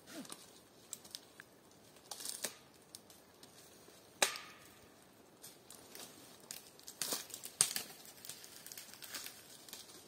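A person climbing a pine trunk: irregular scraping and crackling against the bark, with a sharp knock about four seconds in and a thicker run of scrapes around seven to eight seconds.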